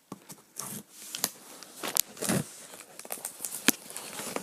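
A cardboard box being handled and cut into with a knife: irregular scraping, tearing and crinkling with sharp clicks.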